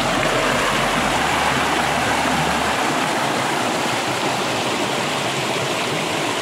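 Water rushing steadily over rocks at a small rocky waterfall and stream.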